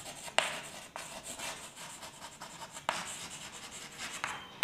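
Chalk writing on a blackboard: strokes scraping across the board, with a few sharp taps as the chalk strikes it.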